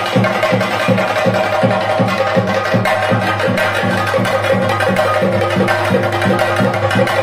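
Traditional percussion music: drums beating a quick, steady rhythm over held tones.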